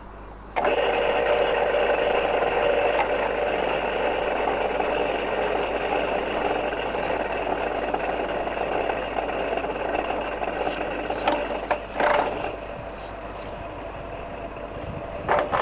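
Town AE4 radial arm drill's spindle motor and geared head starting up and running steadily with a gear whine, set at 133 rpm. About 11 to 12 seconds in there are a few clunks and the sound drops to a quieter level as the spindle runs down.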